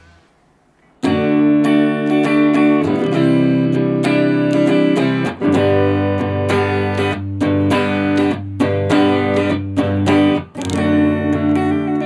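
Electric guitar on a clean amp tone, sent to the amp through a BOSS WL-20 wireless system, playing ringing chords and picked notes. It starts about a second in.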